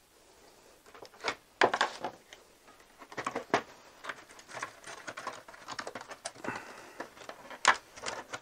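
Plastic clicks and creaks as the rear housing of a BenQ LCD monitor is worked loose from its snap clips by hand: a scattering of short, sharp clicks at uneven intervals.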